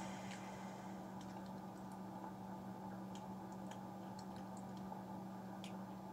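Faint, scattered light clicks and ticks of small plastic Kinder Surprise toy pieces being handled and fitted together, over a steady low electrical hum.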